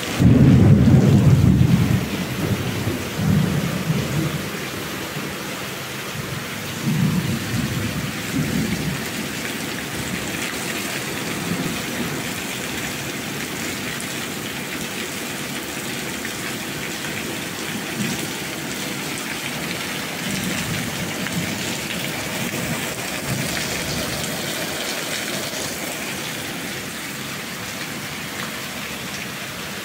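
Steady rain with rolling thunder. The loudest rumble comes right at the start and lasts about two seconds, then weaker rumbles follow a few more times over the rain.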